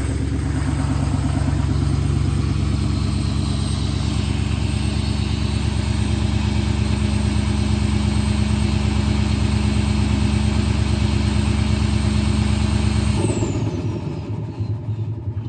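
GM pickup truck engine idling steadily. About thirteen seconds in the engine note stops, a high whine slides downward, and a quieter rumble is left.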